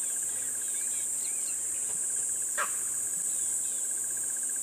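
Steady high-pitched insect chorus of African bush insects, with a faster pulsing trill lower down and small bird chirps. One short sharp call stands out about halfway through.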